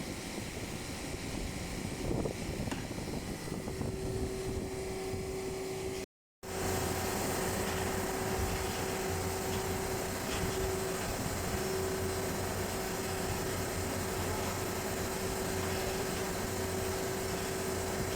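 Steady whirring noise of a running machine, like a fan or motor, cut off by a brief silent gap about six seconds in. After the gap it carries on with a steady hum.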